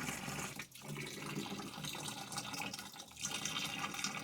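Water trickling and dripping into a washing machine tub that has just been filled.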